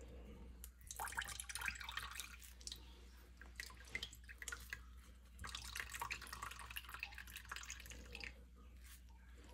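Celery juice dripping and trickling from a mesh strainer into a bowl as a metal ladle presses and scrapes wet blended celery pulp against the mesh. The crackly scraping comes in two stretches, about a second in and again past the middle.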